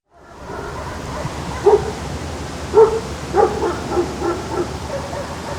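A dog barking outdoors in short, irregular barks, about six of them from nearly two seconds in, over a steady low outdoor background hum. The sound fades in at the start.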